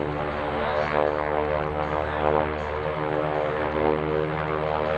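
North American T-6 Texan's nine-cylinder Pratt & Whitney R-1340 radial engine and propeller running steadily at power as the aircraft flies a display.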